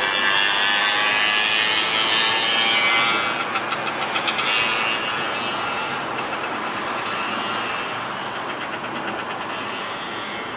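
A passing train: a steady rumble of rolling cars with bursts of rhythmic clatter from the wheels, slowly fading toward the end.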